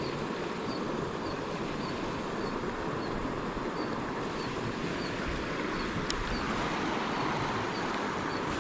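Steady rushing of a mountain stream, with faint high chirps repeating about twice a second and a single sharp click about six seconds in.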